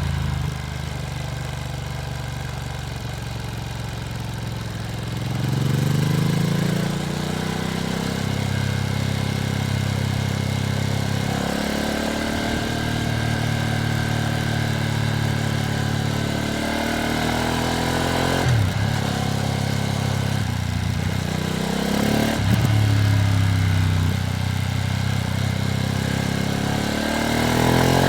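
Ducati Streetfighter V2S motorcycle's V-twin engine under way, its note rising several times as the bike accelerates, with gear changes between the pulls. The revs stay moderate, as the new bike is being run in.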